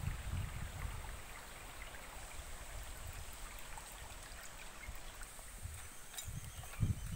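Small forest stream running over rocks: a steady watery hiss.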